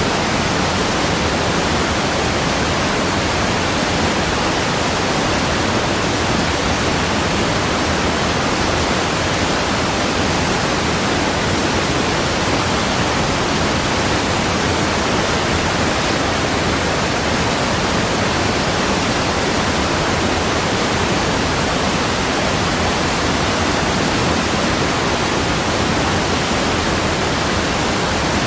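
Steady rushing water, an even unbroken noise with no rise or fall in level.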